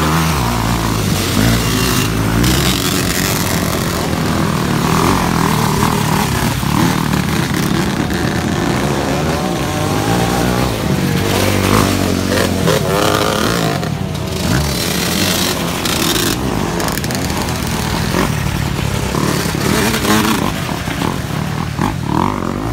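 Motocross dirt bike engines running and revving as the bikes ride through thick mud, with the pitch rising and falling through the gears.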